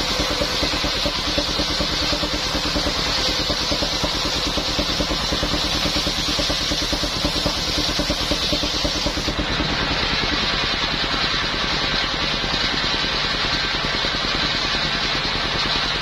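Engine-driven circular sawmill (mesin serkel) running steadily, a fast even engine beat under a high hiss. About nine seconds in, the highest part of the hiss drops away.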